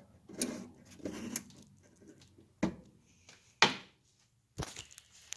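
Handling noises: about half a dozen irregular clicks and knocks, the sharpest one about three and a half seconds in.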